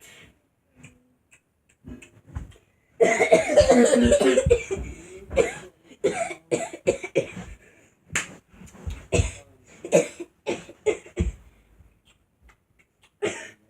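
A boy coughing over and over: a long, dense run of coughs about three seconds in, then a string of short, separate coughs, a pause, and one more cough near the end.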